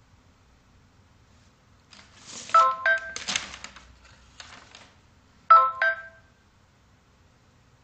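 Phone ringtone: a short two-note electronic chime that sounds twice, about three seconds apart. Between the two rings there is a rustle with a few clicks.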